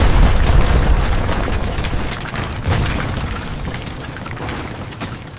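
Building-collapse explosion sound effect: a deep rumble full of crashing, crackling debris, with a fresh surge about two and a half seconds in, then dying away toward the end.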